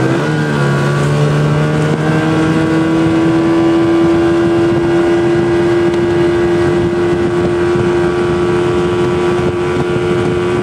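Yamaha 30 hp outboard motor running steadily at cruising speed close by, its note holding one pitch, over the rush of the boat's wake. A second, deeper engine note drops out about three seconds in.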